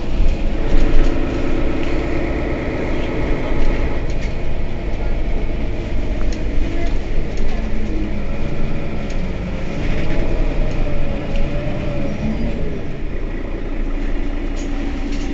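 Mercedes-Benz Citaro facelift city bus standing at a stop with its diesel engine idling steadily. A wavering whine rises and falls about halfway through.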